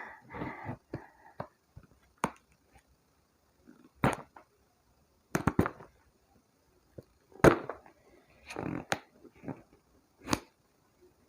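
A heavily taped parcel being worked open by hand: scattered rips, crinkles and knocks of tape and packaging, a few short sharp sounds a second or two apart, with a longer tearing rustle a little before the end.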